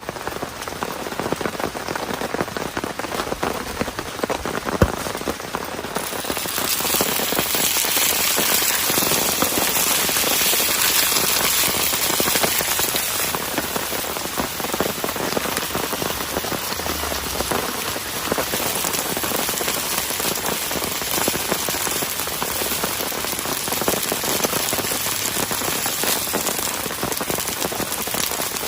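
Rain falling steadily, growing heavier about six seconds in, with a single sharp tap near five seconds.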